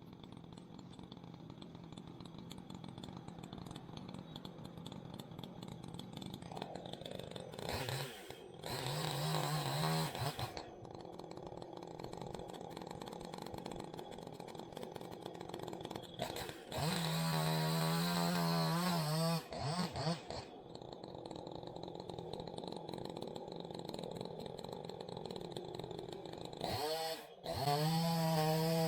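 Chainsaw engine running at a low, steady speed and opened up to full throttle three times, each burst lasting two to three seconds.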